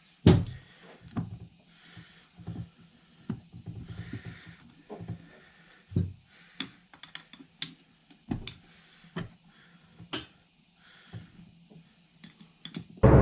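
Irregular clicks and knocks of differential parts and tools being handled and pried as a Polaris RZR XP Turbo front differential is taken apart, the loudest knock just after the start.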